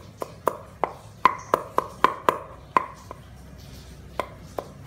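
Kitchen knife mincing on a thick round wooden chopping board: quick, even knocks of the blade on the board, about four a second, with a pause of about a second before the chopping starts again near the end.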